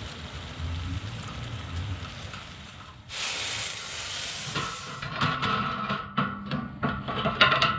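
Steady hiss from a propane burner heating a pan of water. About three seconds in, a much louder hiss lasts about two seconds as the steaming pan is lifted off the burner. Then come a run of sharp clicks and light scraping as a wooden strip works against the expanded-steel tabletop.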